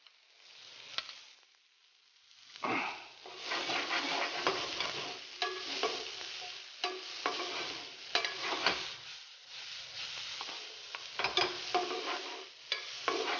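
A metal spoon stirring and scraping minced cauliflower and diced tomato in a hot non-stick frying pan: sizzling with frequent clicks and scrapes of the spoon on the pan, starting about two and a half seconds in.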